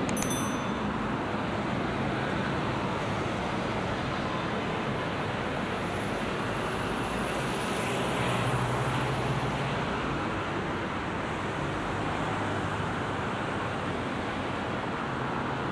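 Steady rush of road traffic on a busy multi-lane city road, heard from the pavement, with a vehicle passing closer and a little louder about eight seconds in.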